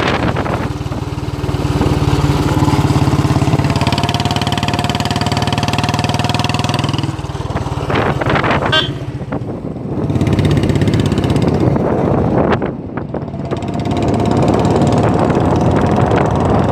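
Royal Enfield Bullet Standard's single-cylinder four-stroke engine running while the bike is ridden on the road. Its note drops twice, briefly, about two-thirds of the way through, and picks up again each time. A few sharp knocks come about eight seconds in.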